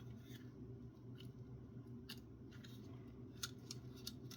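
Faint, scattered small clicks and scrapes of hands working at a Cisco X2 transceiver module's housing, trying to split it apart, over a steady low hum.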